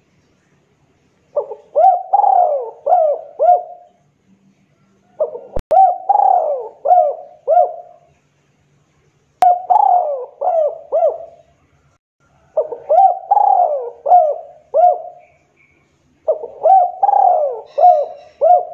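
Spotted dove (tekukur) cooing: five phrases, each a quick run of about five coos, coming one every three to four seconds.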